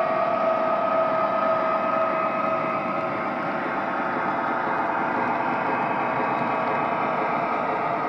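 O-gauge model freight cars rolling past on three-rail FasTrack: a steady rumble of metal wheels on the rails, with faint steady tones under it.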